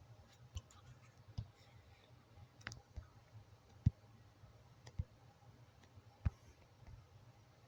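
Computer mouse clicking while editing a graphic: a handful of sharp, single clicks at irregular intervals about a second apart, over a faint low hum.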